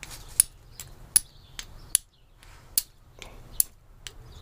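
A piece of flint struck repeatedly against a hand-forged steel striker buckle, throwing sparks: short, sharp, scraping strikes about two a second, unevenly spaced.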